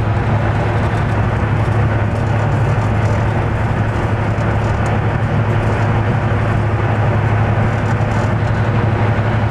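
Cab-interior sound of a British Rail Class 55 Deltic diesel locomotive under way: the steady low drone of its Napier Deltic two-stroke diesel engines with the running noise of the train, holding one even level throughout.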